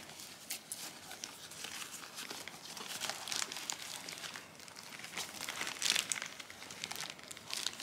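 Irregular crinkling and rustling of plastic wrap and fabric as hands rummage through the compartments of a new tote bag whose handles are still in plastic, a little louder about six seconds in.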